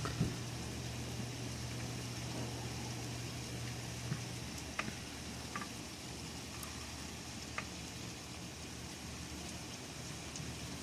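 Steady rain hissing, with a few sharp drips ticking here and there. A low hum stops about four seconds in.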